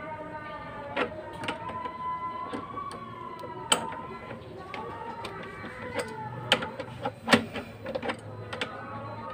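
Sharp metal clinks of a wrench on the nuts and bolts of a grinder mount being tightened, a handful of separate strikes, over background music with a held melody line.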